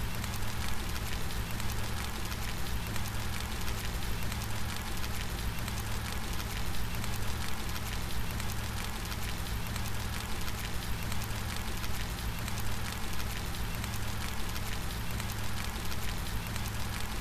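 Steady rain: many individual drops ticking through a continuous hiss, over a constant low rumble, with no thunder.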